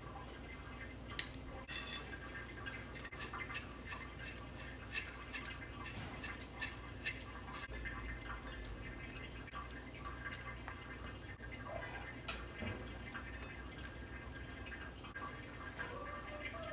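Kitchen handling noises: light clicks and taps as a sauce bottle is handled and dry toppings are sprinkled into a ceramic bowl. Most come in a quick run of sharp clicks a couple of seconds in, over a low steady hum.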